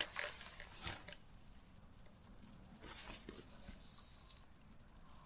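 Faint rustling and handling noise from an angler moving on the bank while playing a hooked fish. A couple of light clicks come in the first second, and a soft hiss runs for about a second and a half around the middle.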